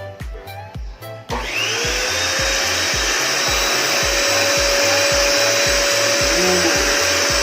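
JK-8 1000-watt vacuum cleaner switched on about a second in, its motor spinning up quickly into a steady whine over a loud rush of air. Background music with a steady beat plays throughout.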